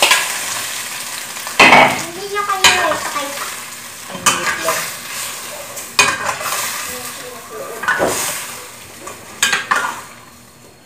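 Chicken adobo sizzling in a frying pan while it is stirred, with a cooking utensil knocking and scraping against the pan about seven times. The sizzle fades toward the end.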